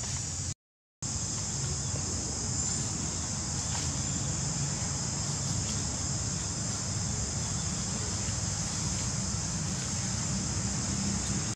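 Steady, high-pitched insect chorus with a low rumble underneath. The sound drops out completely for about half a second near the start.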